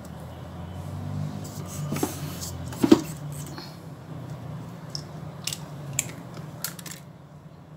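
Eggs being cracked one at a time: a handful of sharp shell clicks and crunches over a low steady hum, the loudest about three seconds in.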